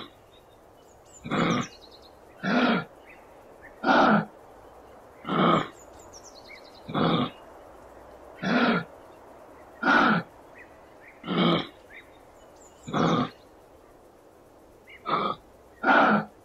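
Kangaroo calling: short, rough calls repeated about every one and a half seconds, about eleven in all.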